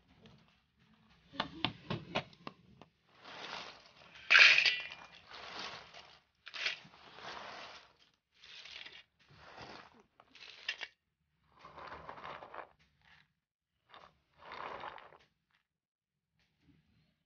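Walnut kernels and shells being handled by hand: a few sharp clicks about a second and a half in, then a run of short rustling, scraping sounds.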